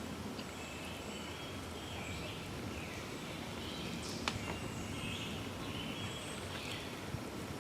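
Birds calling over a steady outdoor background hiss, with short repeated call phrases about once a second. There is a single sharp click about four seconds in.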